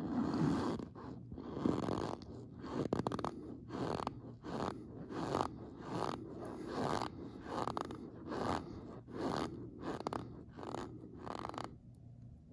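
Packed cornstarch crunching and squeaking as it is squeezed, in a steady run of short crunches about one and a half a second, easing off near the end.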